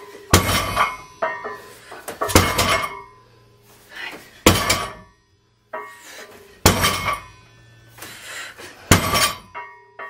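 A loaded barbell set down on the floor at the bottom of each deadlift rep, five times about every two seconds, each thud followed by a short metallic clank and ringing of the plates and bar.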